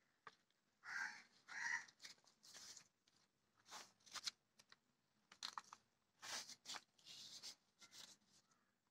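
Fresh green leaf crinkling and rustling as hands fold it closed around a filled rice-dough parcel, in a string of short, quiet crackles.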